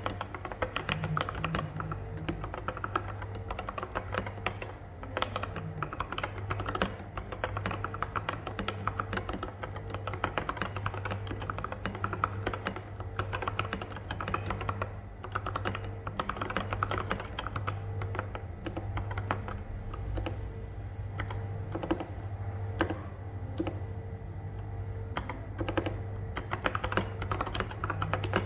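Mechanical keyboard with lubed and filmed Durock Koala tactile switches under OSA-profile keycaps, typed on quickly and continuously in a dense run of keystrokes.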